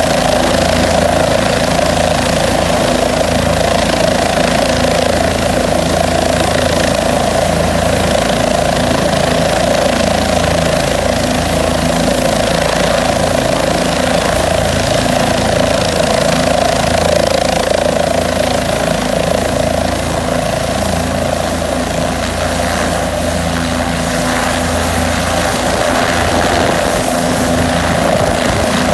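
Light turbine helicopter running on the ground with its main rotor turning: a steady rotor and engine noise with a thin, high turbine whine that rises slightly in pitch near the end.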